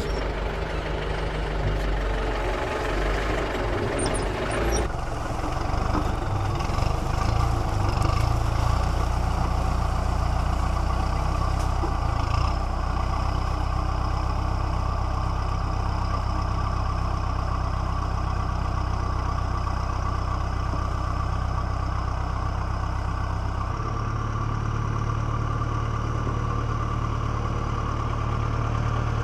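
Kubota tractor's diesel engine running steadily. Its note shifts near the end.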